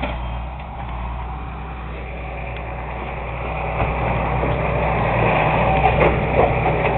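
Large engine of a heavy lifting machine running steadily, growing louder from about halfway through.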